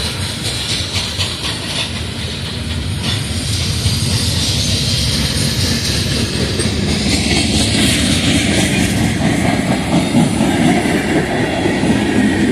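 Freight train cars rolling past on the rails, with steady wheel and rail noise and a clickety-clack of wheels over the rail joints. It gets louder about halfway through as the cars pass close by.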